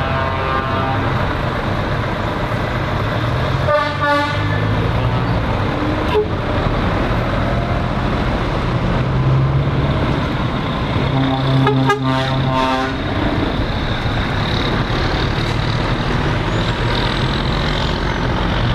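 Scania lorries driving past with their diesel engines running, and truck horns sounding three times: at the start, briefly about four seconds in, and longer around twelve seconds in.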